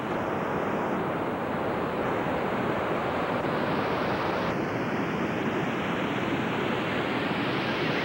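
Steady rushing roar of water from waterfalls and rapids.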